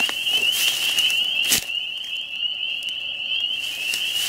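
A steady, high-pitched, trilling chorus of calling animals, with scattered crackles and clicks. A sharper click comes about a second and a half in.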